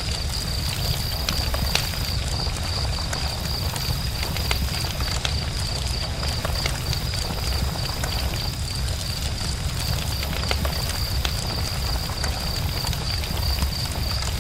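Campfire burning and crackling: irregular sharp pops and snaps scattered over a steady low rumble. A steady, faintly pulsing high-pitched tone runs throughout.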